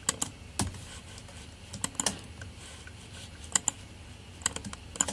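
Computer keyboard keys and mouse buttons clicking while shortcut keys are pressed to extrude and move vertices: scattered single and paired clicks at irregular intervals.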